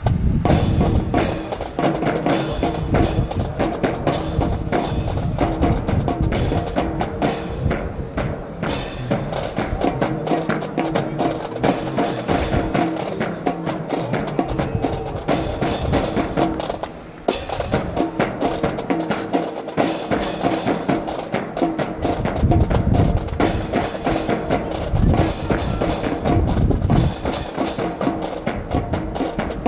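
Music with drums and percussion, a steady beat over held tones. It drops out briefly a little past halfway, then resumes.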